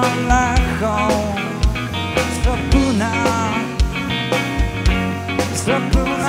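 A live rock band playing: a drum kit with a steady kick drum, bass and electric guitars, and a bending melody line over the top.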